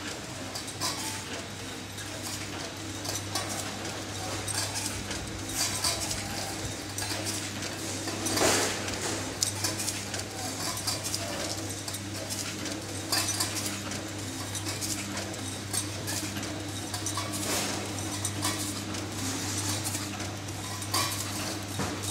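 Semi-automatic three-side-sealing sachet packing machine running: a steady motor hum under continual irregular metallic clicking and clatter from its film feed and sealing and cutting jaws, with a louder burst of clatter about eight seconds in.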